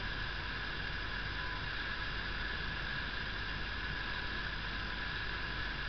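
Steady background hiss with a low hum underneath, unchanging throughout: room tone with no distinct event.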